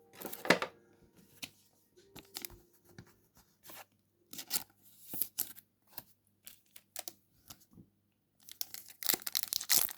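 Foil booster pack wrapper being torn open and crinkled by hand: a scattering of short crackling rustles, busiest near the end.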